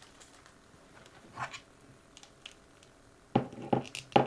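Small plastic parts being handled and fitted together: a soft rustle, a few faint ticks, then three sharp clicks near the end as a flame piece is pushed onto a plastic collectible figure.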